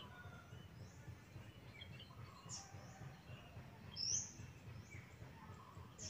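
Birds chirping in short, high calls scattered at intervals, the loudest a rising chirp about four seconds in, over a faint low steady background noise.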